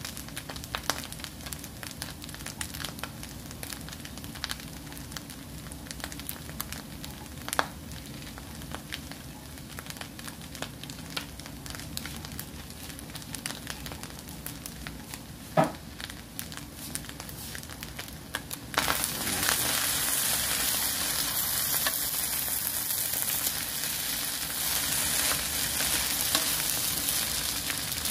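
Fried rice crackling with scattered pops in a hot nonstick pan. About two-thirds of the way through, the sizzle turns suddenly much louder and steady, and a wooden spatula stirs the rice near the end.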